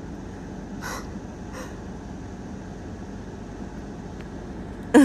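Steady wash of ocean surf on a beach. Two short breathy huffs come about one and one and a half seconds in, and a louder, sharper sound comes right at the end.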